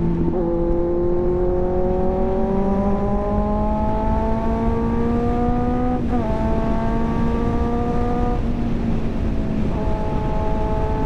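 Kawasaki Z900's inline-four engine pulling under way, its pitch climbing steadily for several seconds, then stepping down at a gear change about six seconds in and dipping again near the end as the throttle eases. A low wind rumble on the microphone runs under the engine.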